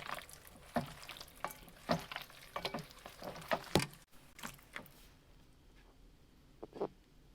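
Lamb chops sizzling in hot fat, irregular crackling pops over a hiss that stops about five seconds in; a soft double click comes near the end.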